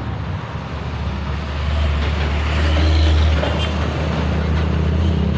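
A motor vehicle's engine running with road traffic noise around it; the low rumble grows louder about two seconds in.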